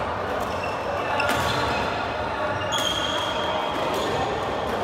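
Badminton play in a large, echoing sports hall: sharp racket hits on shuttlecocks, two clear ones about a second and a half apart, and a brief high squeak of court shoes on the wooden floor, over background voices.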